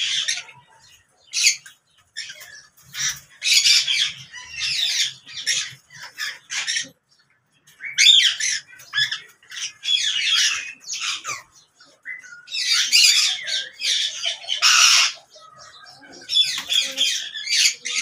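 Caged Alexandrine parakeets squawking: a run of harsh, repeated calls in short bursts with a brief lull about seven seconds in, loudest a little before the three-quarter mark.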